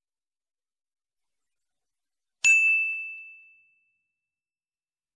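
A single bright notification-bell ding sound effect. It strikes sharply about two and a half seconds in and rings out, fading over about a second and a half.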